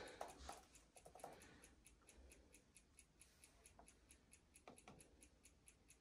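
Near silence: quiet room tone with a faint, rapid, regular ticking, about five ticks a second, and a few soft handling knocks in the first second and again just before five seconds in.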